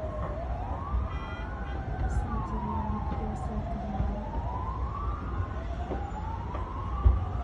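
Emergency-vehicle sirens wailing, their pitch rising and falling slowly, about once every four seconds, with two sirens sounding out of step, over a low rumble.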